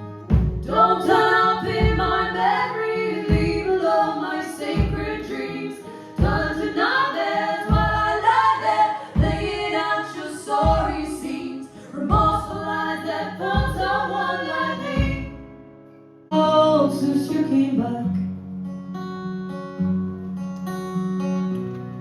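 Background music: a singer over a steady drum beat, with a low thump about every one and a half seconds. About three-quarters of the way through the beat stops and a quieter section of guitar and held notes begins.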